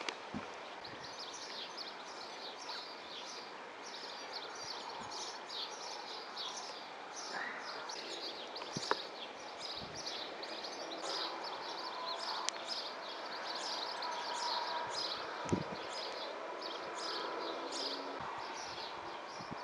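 Outdoor ambience of small birds chirping rapidly and continuously over a steady background hiss, with a few faint knocks from hand work.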